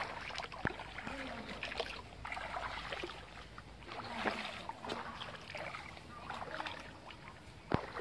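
Footsteps wading and splashing through shallow muddy water, a swishing step about once a second. A sharp click or snap sounds just before the end.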